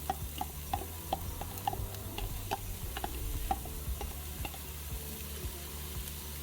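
A utensil clicking and scraping against the stainless steel inner pot of an Instant Pot, about three taps a second, as diced onion is stirred on the saute setting. The taps stop about two thirds of the way through, over a faint sizzle.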